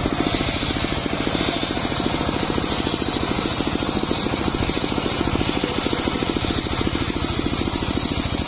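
Large circular sawmill blade ripping lengthwise through a mahogany log: a steady high whine of the cut over the rapid, even pulsing of the machine's drive motor.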